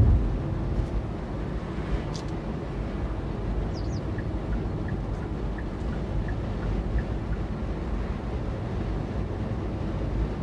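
Steady road and tyre rumble heard inside the cabin of a Hyundai Ioniq Electric driving at about 65 km/h.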